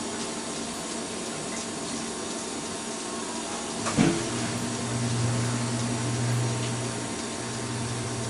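Water running into a kitchen sink as boiled potatoes are drained, with a sharp knock about four seconds in followed by a steady low hum.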